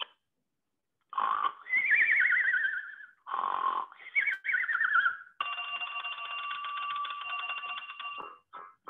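Comic sound-effect snoring, twice: each a short rasp followed by a whistling, warbling fall in pitch. It is followed by a steady ringing tone of about three seconds, like an alarm going off, and rhythmic strummed music begins near the end.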